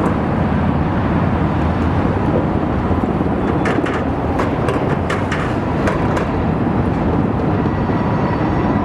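Local switching train rolling across a steel bridge: a steady loud rumble, with a run of sharp clacks in the middle.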